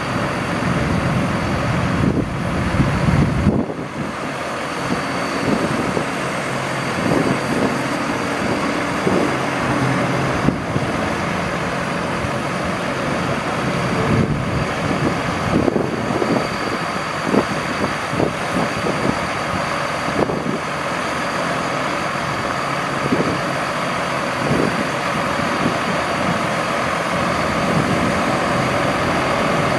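1999 Ford F-Series mechanics truck's engine running steadily while its National N80 crane moves the boom, with scattered irregular clunks. A heavy low rumble drops away about four seconds in.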